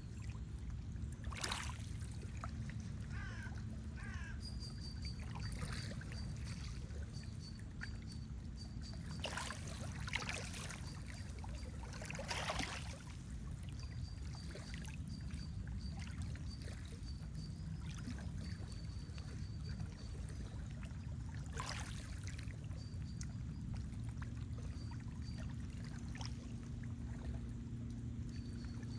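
Lake water lapping and sloshing with a steady low rumble, broken by a few brief splashes. A faint high, thin whistle comes and goes in the background.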